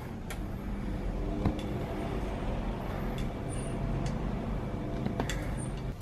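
Siemens WM12P260TH front-loading washing machine resuming its wash cycle: the motor runs with a steady hum as the drum turns the wet load, with a few light clicks.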